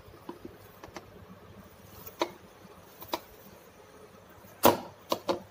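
Hands kneading soft maida dough in a bowl: scattered soft slaps and knocks as the dough is pressed and turned against the bowl, with a quick cluster of three near the end, the first of them the loudest.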